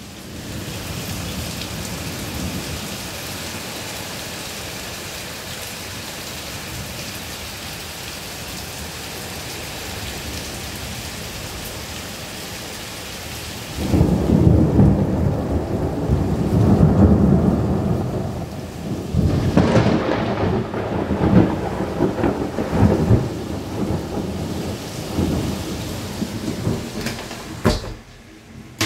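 Heavy rain from a sudden cloudburst falling steadily as an even hiss. About halfway through, thunder breaks in suddenly, much louder, and rolls on in swelling and fading rumbles for over ten seconds before dying away near the end.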